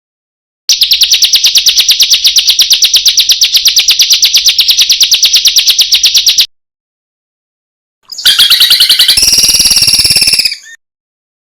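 Recorded songbird calls of the kind used as training song for cage birds: a long, rapid, high trill of about ten notes a second lasting some six seconds, then, after a gap, a harsher, buzzier call of about two seconds.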